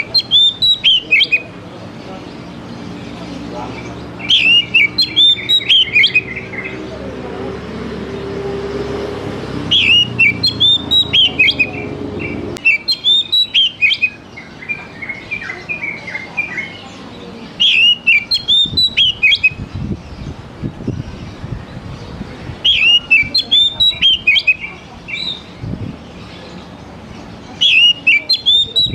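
Oriental magpie-robin (kacer) singing: about seven loud phrases of quick, high whistled notes, each a second or two long, one every four to five seconds.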